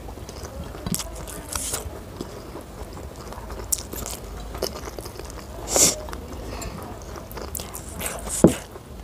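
Close-miked eating: Schezwan fried rice and chicken chewed with open-mouthed clicks and wet smacks, while fingers scoop the rice on a plate. The loudest smacks come near the middle and toward the end.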